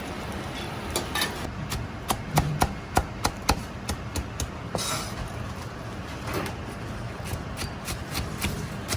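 Sharp irregular knocks over a steady kitchen hum, with a quick run of about five knocks a couple of seconds in.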